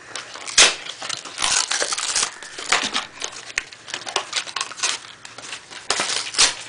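Small paperboard box being opened by hand: a run of irregular crackles, rips and scrapes as the flaps are pried open, the sharpest about half a second in.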